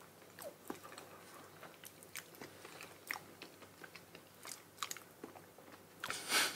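Quiet, close mouth sounds of eating soft, creamy Monthong durian flesh: wet chewing with scattered small clicks and lip smacks. A brief louder hiss comes about six seconds in.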